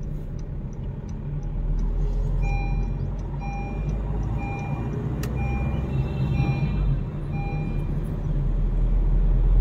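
Honda Amaze cabin noise while driving: a steady low engine and road rumble. In the middle a short electronic warning beep repeats about six times, roughly once a second, and there is a single click about halfway through.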